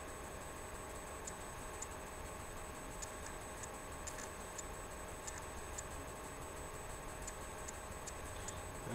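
Quiet room tone with a steady faint electronic whine and hum, under light, irregularly spaced clicks, a dozen or so over several seconds.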